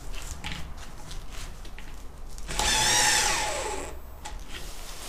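Bosch GSR 10,8 V-EC cordless drill driver running once for about a second and a half, its motor pitch falling steadily as it slows under the load of driving a lag screw into a wooden beam. Faint clicks and handling noise come before and after.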